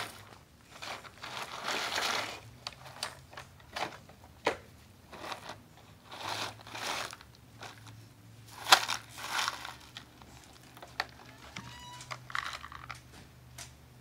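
Gravel crunching and scraping as a toy front loader's bucket is pushed into it and scoops it up, in several bursts with scattered clicks of stones in between; the loudest scrape comes near the middle.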